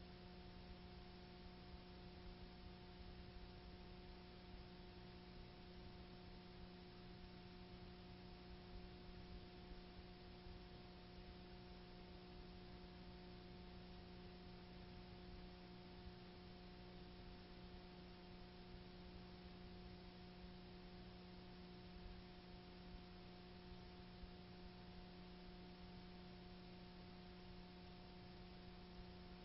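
Near silence: a faint, steady hum with a few fixed tones over a soft hiss, unchanging throughout.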